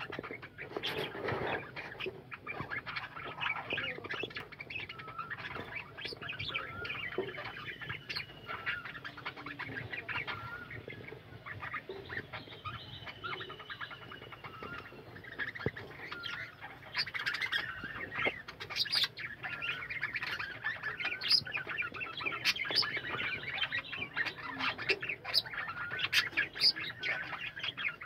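A colony of budgerigars chattering: many overlapping chirps, squawks and short warbling whistles in a dense, unbroken chorus. It grows busier and louder after the middle.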